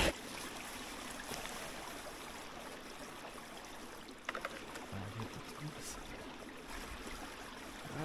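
A small forest creek running steadily, with a sharp click about four seconds in and a few soft knocks after it.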